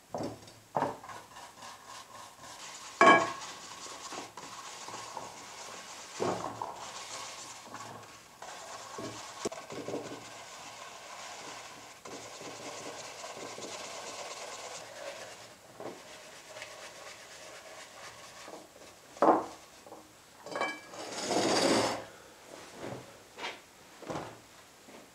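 Bristle brush scrubbing a wet, soapy leather knife sheath into a lather, with scattered knocks and a sharp ringing clink of the glass dish about three seconds in. Near the end, a cloth towel rustles as the sheath is wiped dry.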